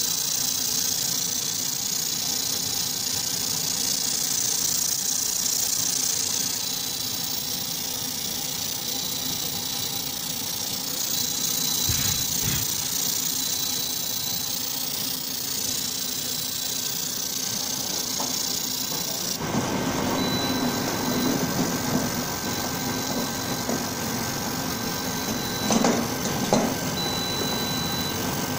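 Fiber laser marking machine deep-engraving aluminum: a steady high hiss over the hum of the machine. About two-thirds of the way in, the hiss drops away and a lower, broader noise takes over, with two short knocks near the end.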